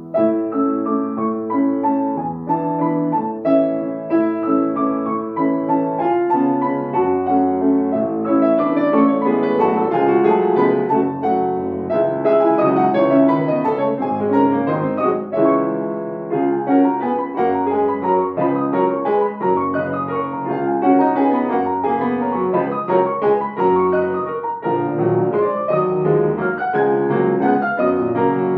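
Grand piano playing classical music. A new passage starts suddenly and loud at the very beginning, with dense, quick-moving notes in both low and high registers that continue throughout.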